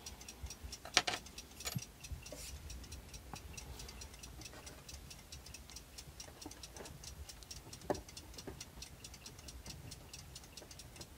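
A mechanical clock ticking steadily and faintly, with a few sharper clicks of fingers working at the metal centre arbor and hand fitting of a clock dial, the loudest about a second in and near eight seconds.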